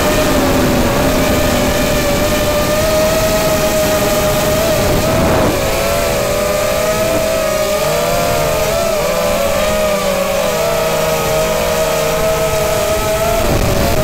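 Multirotor drone's electric motors and propellers whining, heard from on board. About halfway through the single steady tone splits into several close pitches that drift up and down as the motors change speed.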